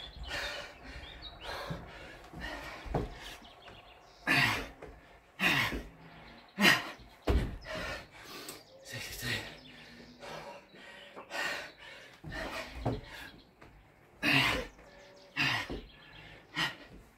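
A man breathing hard from the effort of burpees: sharp, forceful exhalations, roughly one every one to two seconds.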